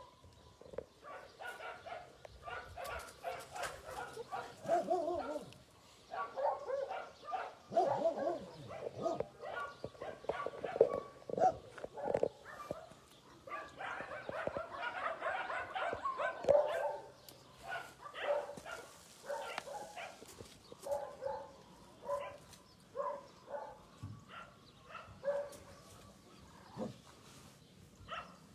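Many dogs barking and yipping at once, short overlapping barks throughout, busiest in the middle stretch.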